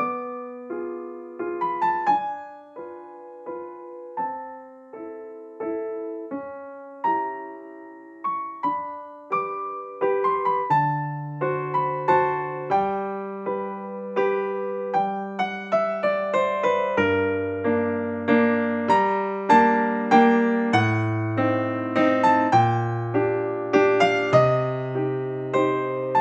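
Background piano music: a gentle melody of single struck notes, with a bass line joining about ten seconds in.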